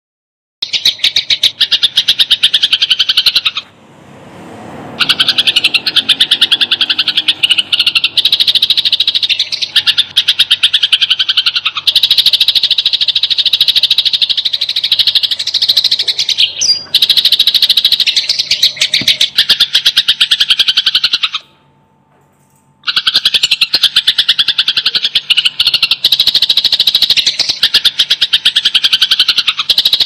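House sparrows giving the fast, dense chattering chirps of fighting birds, one rapid run after another. There are short breaks about four seconds in and again past twenty seconds.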